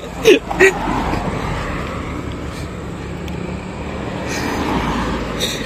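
Road traffic noise from passing vehicles, a steady rumble that swells toward the end.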